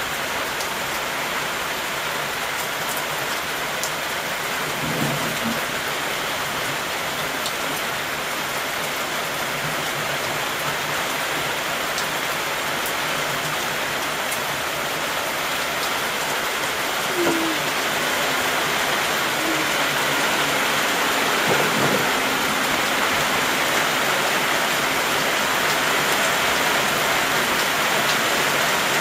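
Heavy rain falling steadily, a dense even hiss that grows slightly louder in the second half, with a few brief low knocks.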